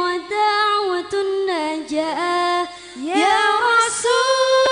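Background music: an Arabic nasheed sung unaccompanied by a high voice, holding long notes and sliding between them.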